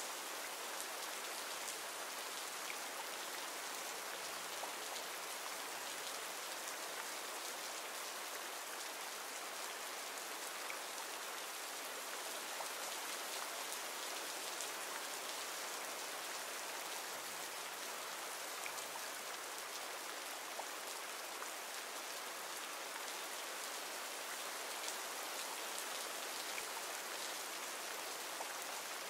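Steady rain ambience: rain falling and pattering evenly, with faint scattered drop ticks.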